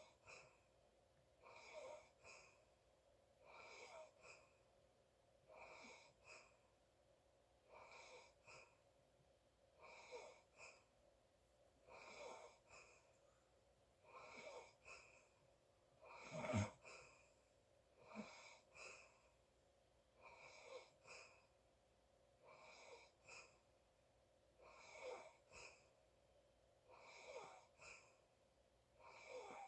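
A sleeping person's noisy breathing, a breath about every two seconds with a high whistling tone in each, and one louder, deeper snore about halfway through.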